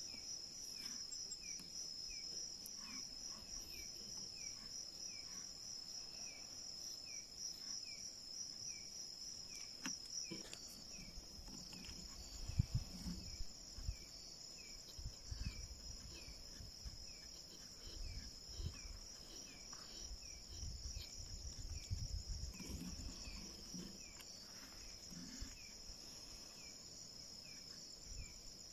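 Night chorus of insects, crickets among them: a steady pulsing high trill with a lower chirp repeating about one and a half times a second. Low thumps and rustles come through in the middle.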